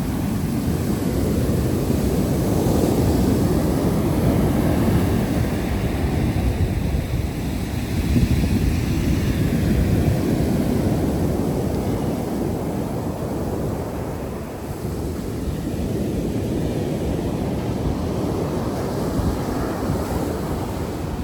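Wind buffeting the microphone over the wash of waves on a beach, swelling and easing every few seconds.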